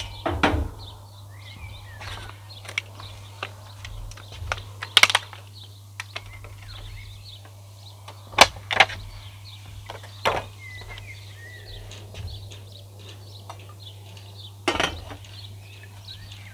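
Intermittent metal clanks and knocks from handling a spun steel camp oven and its lid: about seven sharp strikes spread out, the loudest about eight seconds in. Faint bird chirps behind.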